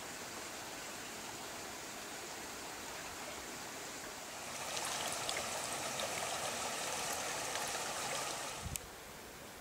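Water trickling and gurgling in a shallow brook, growing louder about halfway through. It breaks off with a brief thump near the end.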